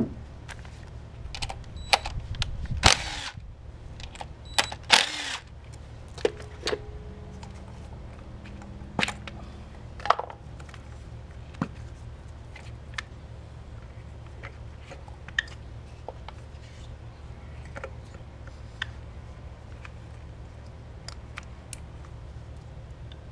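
Clicks and clatter of tools and parts while the ignition coils are pulled and swapped on a four-cylinder engine, with two short bursts of a cordless drill/driver a few seconds in, over a steady low hum.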